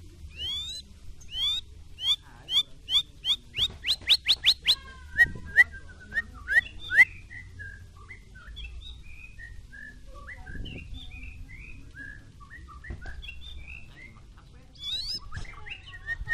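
White-rumped shama (murai batu) singing. It starts with loud rising whistles that quicken into a rapid run of repeated notes, moves into lower warbled phrases and then softer, varied notes, and begins another loud rising phrase near the end.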